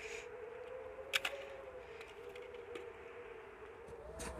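A steady, slightly wavering siren-like drone, with sharp clicks about a second in and again near the end.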